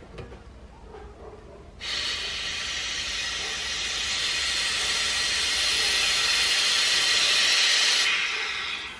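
Compressed air hissing steadily from an airline nozzle held to an air-con evaporator pipe, pressurising the capped-off evaporator for a soapy-water leak test. The hiss starts sharply about two seconds in, grows a little louder, and cuts off near the end, fading over the last second.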